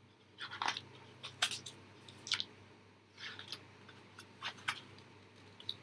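A quiet series of irregular short clicks and brief rustles, about a dozen in all, with the sharpest clicks around one and a half and two and a half seconds in, over a faint steady hum.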